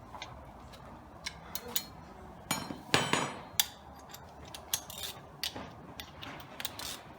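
Metal hand tools clinking and knocking against a car's front suspension parts. About three seconds in comes a louder, ringing metal clank.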